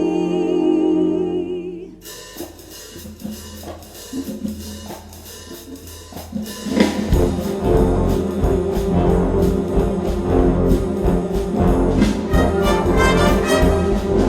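Live wind orchestra music: a held chord ends about two seconds in, a few seconds of softer playing with light percussion follow, then about seven seconds in the full band with brass and drum kit comes in loudly.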